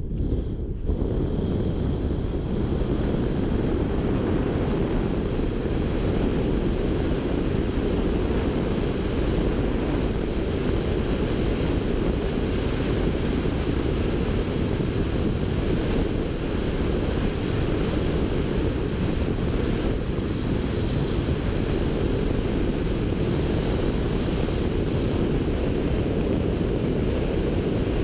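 Rushing air of wingsuit flight buffeting the camera's microphone: a steady, heavy wind roar that builds within the first second as the jumper leaves the cliff and then holds.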